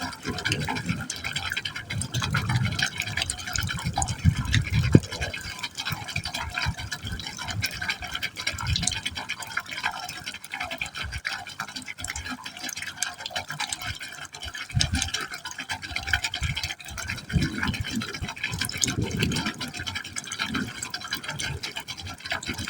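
Water pouring into a pipe opening, a steady splashing wash with irregular low gurgles as it drops down the hole.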